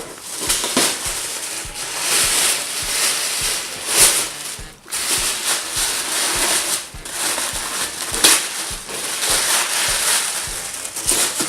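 Toy packaging being opened by hand: irregular rustling and crinkling, with a few sharp crackles.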